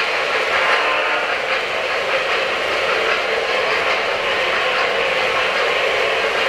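O-scale three-rail model freight train rolling past, a steady running noise of its metal wheels on the track.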